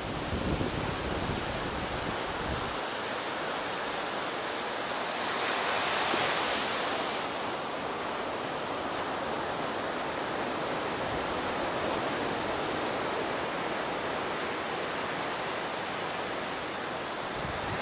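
Sea surf washing onto a sandy beach, a steady hiss of waves with one wave swelling louder about six seconds in.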